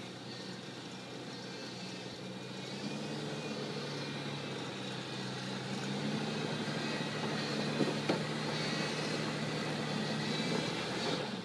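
Toyota Land Cruiser FZJ80's 4.5-litre straight-six engine working under load at crawling speed as the truck climbs over rock ledges. The engine note rises and grows louder through the clip, with a couple of brief knocks about eight seconds in.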